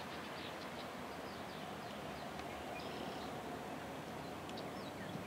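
Scattered bird chirps over a steady low rumble from a slowly approaching diesel locomotive.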